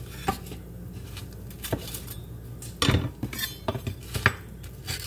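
Metal spatula and pizza cutter knocking and scraping on a wooden cutting board, with a dish clinking: irregular kitchen clatter, busiest about three seconds in.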